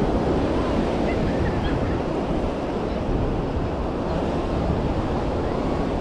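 Wind buffeting the microphone over surf on the beach: a steady, even rushing noise.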